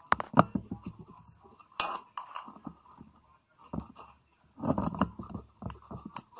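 Small metal and plastic parts of an electrical switch clinking and knocking together as they are handled and fitted, a string of irregular light taps.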